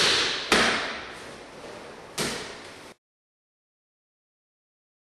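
Three sharp impacts, the first two close together and the third about a second and a half later, each echoing away as in a large hall; then the sound cuts off abruptly to dead silence.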